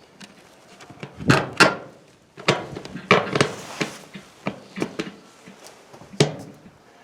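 Plastic LED third brake light being fitted onto the truck with its mounting bolts going into the holes: a series of sharp clicks, knocks and thuds, loudest about one and a half seconds in, around three seconds, and near six seconds.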